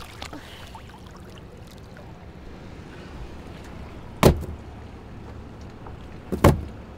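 Two sharp thuds about two seconds apart as a wet rope is dropped in coils onto a fiberglass boat deck, over a steady low rumble.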